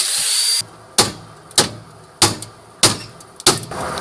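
A power tool cutting through a car's coil spring stops about half a second in. Then come five sharp knocks, evenly spaced about every 0.6 s.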